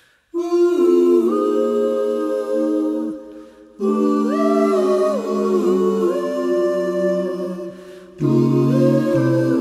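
Wordless a cappella close-harmony singing by a mixed vocal quartet: held chords in three phrases, each fading away before the next comes in, the third with a lower bass note underneath.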